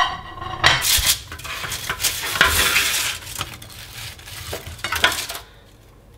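Wooden spatula and wooden fork scraping baked sweet potato fries off parchment paper on a metal baking tray and dropping them onto a glass plate, with irregular scrapes and light knocks. The clatter dies down near the end.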